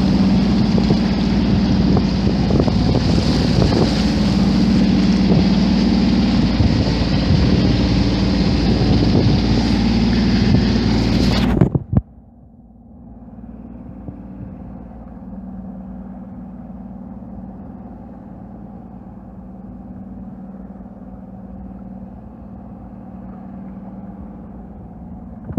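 Mercury outboard motor running steadily, with heavy wind buffeting the microphone. About twelve seconds in, the sound cuts abruptly to a quieter, steady engine hum with little wind.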